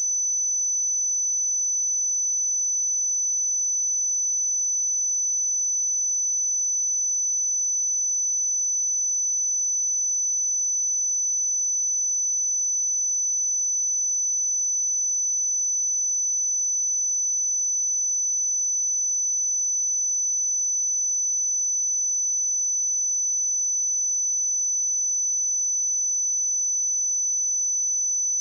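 A pure 6014 Hz sine-wave test tone, one steady high-pitched tone held at a constant level.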